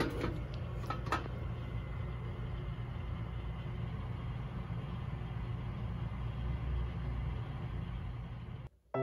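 Metal lid of an electric sweet potato roaster clicking and clattering as it is lifted open, near the start and again about a second in, over a steady low electrical hum from the running appliance.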